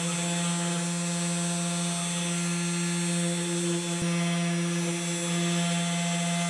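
A CNC 3018 Pro mini mill runs while it engraves letters into pine with a single-flute engraver bit. Its spindle motor hums at a steady pitch over a high hiss.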